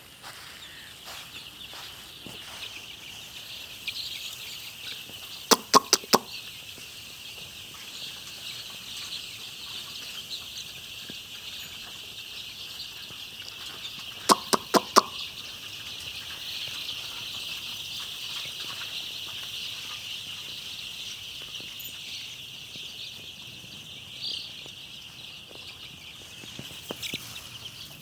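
A flock of farmed chickens calling together in a steady, dense, high-pitched chorus. Two quick runs of four sharp knocks cut through it, about five seconds in and again about fourteen seconds in.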